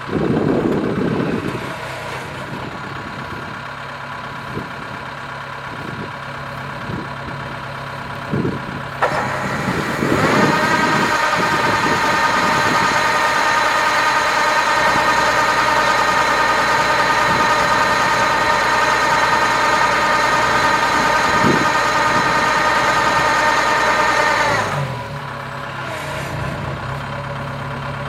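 Kubota DC-70 Plus combine harvester's diesel engine and threshing machinery running; about ten seconds in it speeds up to a louder, higher steady pitch, holds there, then drops back near the end. Occasional knocks come through.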